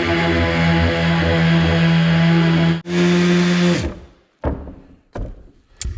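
DeWalt 5-inch sander running steadily while sanding wood. It cuts out for an instant a little under three seconds in, then is switched off about a second later and winds down with falling pitch. A few light knocks follow.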